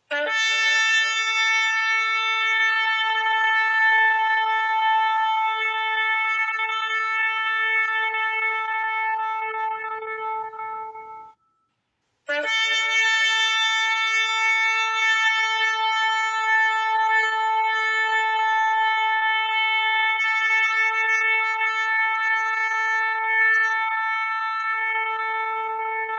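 Shofar (ram's horn) sounding two long, steady blasts of about eleven seconds each, with a short silence between them; each blast opens with a brief lower note before jumping up to the held pitch.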